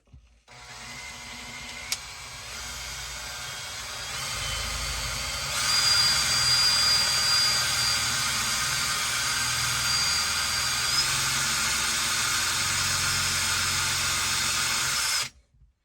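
Electric drill running steadily as its bit bores through the bag material and into the wood beneath, with a whine over the motor. It gets louder about four and again about six seconds in as the bit bites, holds, then stops suddenly near the end.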